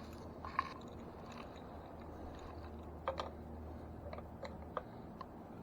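Scattered small clicks and light rattles from hands handling bike parts and tools, the sharpest about half a second in and a few more after three seconds, over a faint steady low hum.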